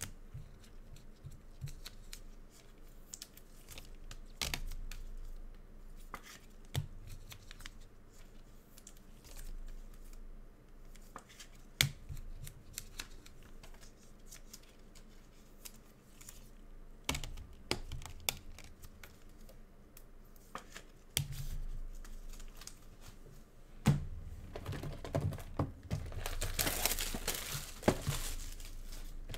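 Trading cards and their packaging being handled: scattered taps and rustles, then near the end a stretch of crinkling and tearing as a plastic wrapper is ripped open.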